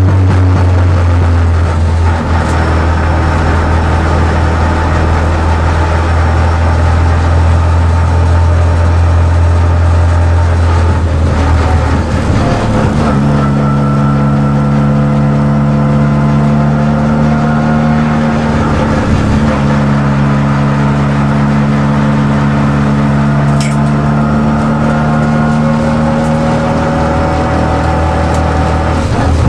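Race car engine heard from inside the cockpit, cruising at steady low revs. About twelve seconds in the note steps up to a higher pitch and then holds steady.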